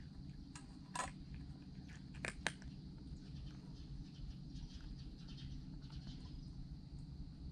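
A cat eating from a stainless steel bowl: a few short sharp clicks, the loudest about two and a half seconds in, over a steady low background rumble.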